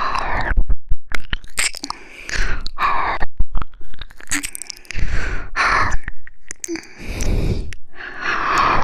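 ASMR ear-licking mouth sounds: wet licking and kissing clicks between breathy exhales that swell and fade every second or two.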